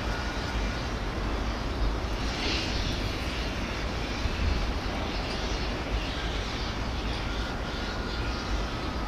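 Outdoor wind noise buffeting the microphone: a steady, uneven low rumble with a hiss over it, with no distinct events.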